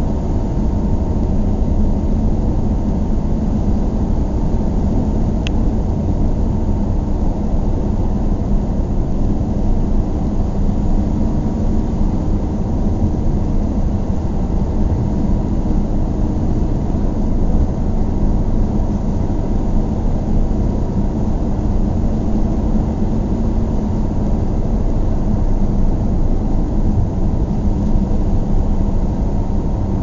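Car driving, heard from inside the cabin: a steady low rumble of engine and road noise that holds even throughout. A single faint click sounds about five seconds in.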